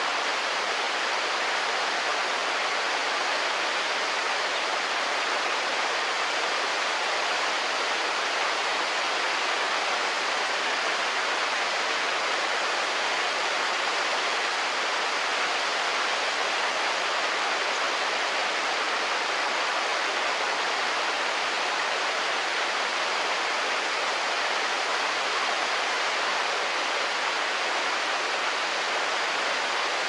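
Harajiri Falls, a wide curtain waterfall, pouring steadily: an even, unbroken rush of water, with little deep rumble.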